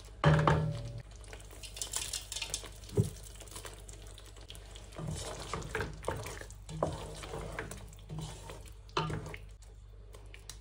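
Spatula stirring and scraping in a pan of thick korma gravy, with irregular knocks and scrapes against the pan. The loudest knock comes just after the start.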